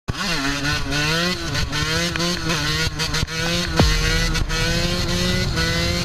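Suzuki RM125 two-stroke single-cylinder dirt bike engine accelerating hard. Its pitch climbs and drops several times in the first three seconds as it shifts up through the gears, then it holds steadier and rises slowly.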